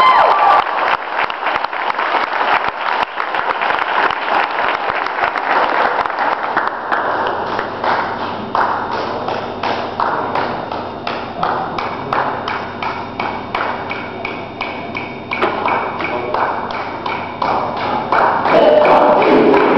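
Many sharp claps and taps from a group of people, dense for the first several seconds and then thinning out, with pitched sounds coming in near the end.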